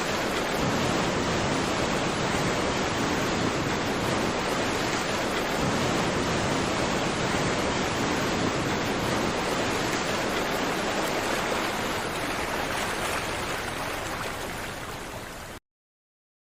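Ocean surf washing ashore as a steady rush of water noise. It fades out over the last few seconds and then stops.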